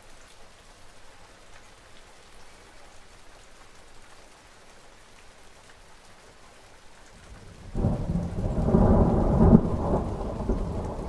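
Steady rain hiss, then a loud thunderclap breaks in suddenly about eight seconds in and rumbles on, deep and heavy.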